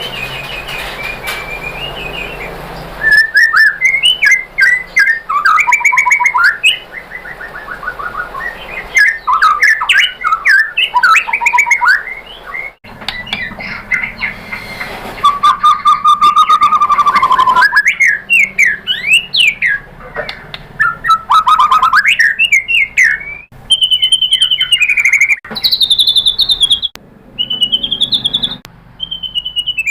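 White-rumped shama (murai batu) singing a rich, varied song of loud whistled phrases, quick repeated notes and sliding slurs, broken by a few abrupt pauses.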